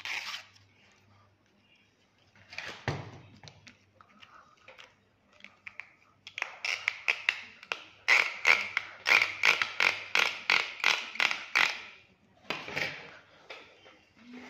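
Steel leader wire and tackle handled on a tabletop: a few scattered clicks and rustles, then a fast, even run of sharp clicks, about three a second, for several seconds.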